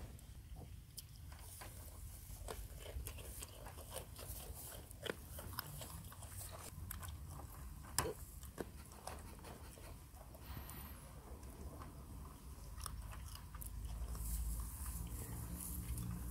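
Goats chewing and crunching raw carrot strips, a quick irregular run of small crisp bites.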